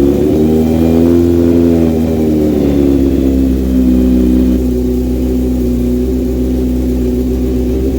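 Kawasaki Z900's inline-four engine idling through a full aftermarket exhaust (Black Widow headers with a MIVV MK3 silencer), just after start-up. The pitch lifts a little in the first couple of seconds, eases back, and settles into a steady idle from about halfway.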